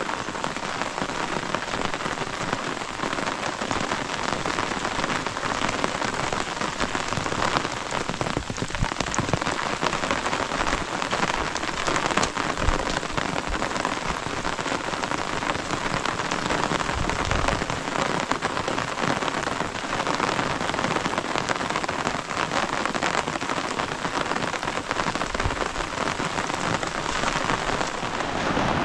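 Steady rain falling, with many small drop hits close to the microphone.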